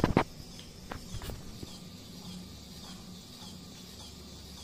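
LEGO SPIKE Essential earthquake-simulator rig running: a steady high rattling hiss from the motor-driven shaking platform, with a few sharp knocks, the loudest right at the start. The hiss stops near the end.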